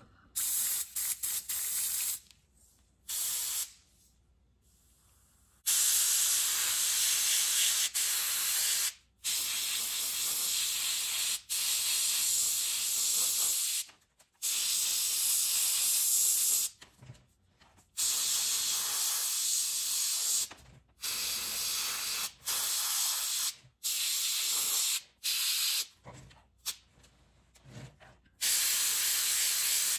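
Airbrush spraying white paint in repeated bursts: a hiss of air and paint that starts and stops about a dozen times as the trigger is pressed and let go, each burst lasting one to three seconds.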